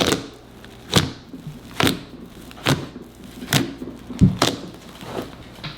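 Slime being squished and pressed by hand, a sharp pop or squelch about once a second, two close together near the middle.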